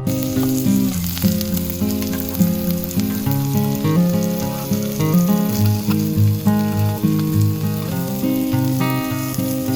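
Chicken frying on a multi griddle, a steady sizzle throughout, with background acoustic guitar music.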